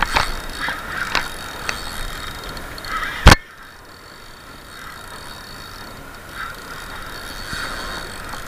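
Spinning fishing reel being handled and wound in: a few clicks in the first seconds and one sharp, loud knock about three seconds in, then the steady whir of the reel retrieving line.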